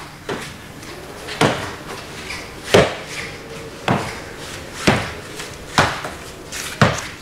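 Slow steps of a person walking with a cane on a hard floor: a sharp knock about once a second, the loudest about three seconds in.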